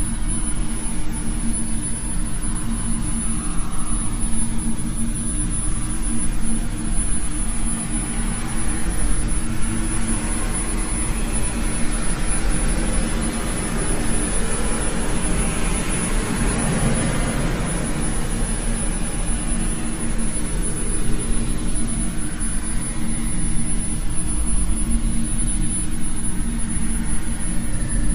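Eerie ambient drone: a steady low rumble with a constant hum under it, and a rushing hiss that swells up towards the middle and then fades back.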